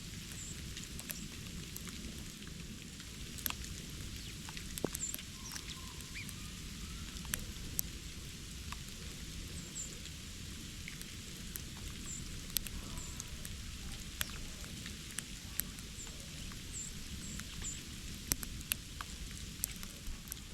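Small birds giving short, very high chirps every few seconds over a steady hiss, with scattered light ticks and taps.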